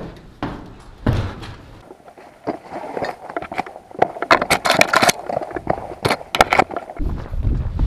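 A quick run of clicks and rustles close to the microphone, densest around the middle. Near the end, wind buffets the microphone with a low rumble.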